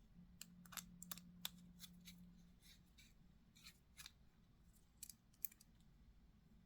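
Faint, irregular small metal clicks and ticks, about fifteen in all, from a folding knife and its screws being handled and fitted together during reassembly.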